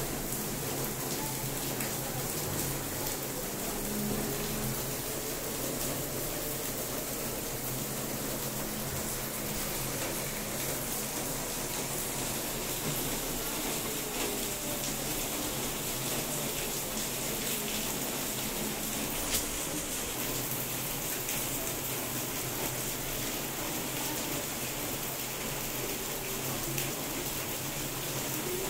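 LG washing machine running through its cycle: a steady rushing, water-like noise over a low hum.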